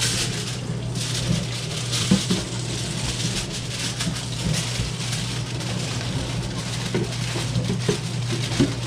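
Aluminum foil crinkling and crackling as it is folded and crimped shut around a whole trout, over a steady low hum.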